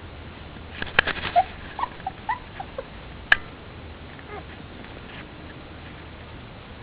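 Four-week-old pit bull puppies giving a run of short, high squeaks and whimpers in the first three seconds. A sharp click comes a little over three seconds in, then it goes quiet.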